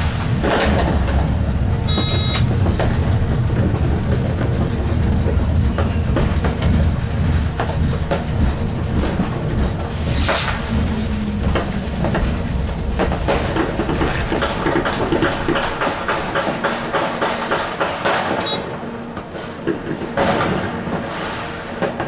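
Stadtbahn light-rail car running, its wheel and rail rumble heard from inside the driver's cab, with New Year's Eve fireworks cracking and banging outside. Two louder bangs come about ten seconds in and near the end, and a brief high tone about two seconds in. The running rumble eases off in the second half.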